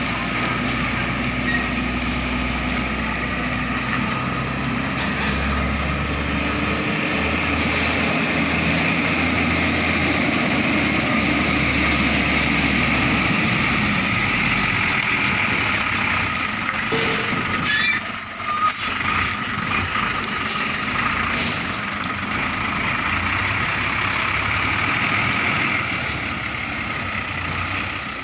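Hino Ranger tractor unit's diesel engine running steadily as the truck manoeuvres slowly, with a few short air hisses and a brief high squeal about two-thirds of the way through.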